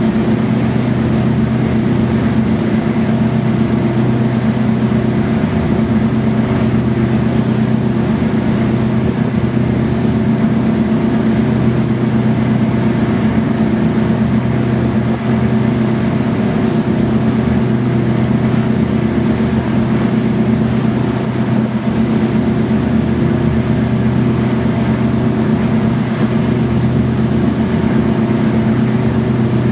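Austal 40 catamaran fast ferry's diesel engines running at cruising speed of about 30 knots: a loud, steady drone with a few level humming tones over a rush of noise.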